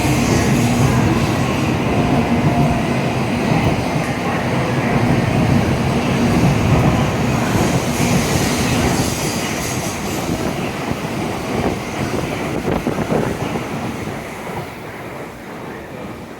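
N700-series Shinkansen train pulling out of the station, a steady rush of running and wheel noise with a faint hum, fading over the last couple of seconds.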